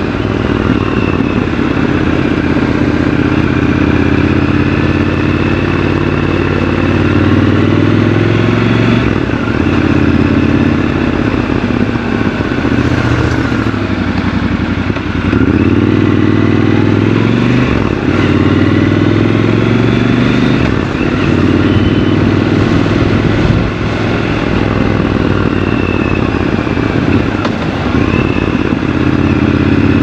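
Triumph Scrambler 1200 XC's 1200 cc parallel-twin engine running under way in city traffic. Its pitch rises and falls several times as the bike accelerates and slows.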